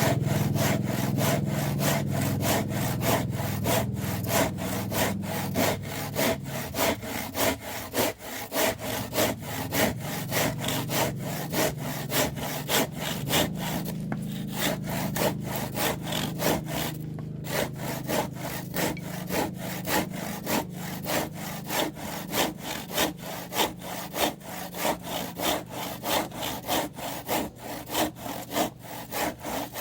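Kapusi 18-inch crosscut hand saw cutting through soft, weathered wood in fast, even back-and-forth strokes, about three a second, with two short pauses near the middle.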